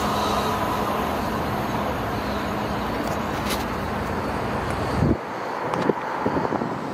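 South Western Railway electric multiple unit pulling away, its rumble and faint whine fading as it draws off into the distance. About five seconds in the low rumble drops out sharply, leaving a few light clicks.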